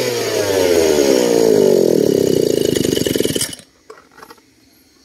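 Brush cutter's small petrol engine running down as the throttle is let off, its pitch falling steadily until it stalls about three and a half seconds in. It cannot hold an idle: the carburettor's broken throttle-stop bracket lets the throttle close too far and the engine dies.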